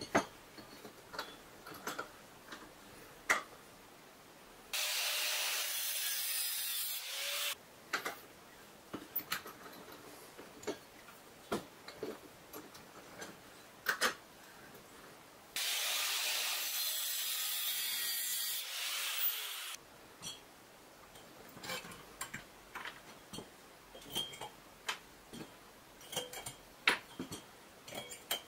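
Hand tools working a steel square tube: scattered metallic clicks and taps, with two stretches of steady scraping on the metal, one of about three seconds some five seconds in and a longer one of about four seconds some sixteen seconds in.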